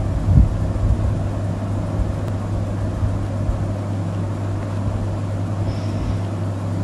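Steady low hum and rumble of background noise, with a few low bumps about half a second in.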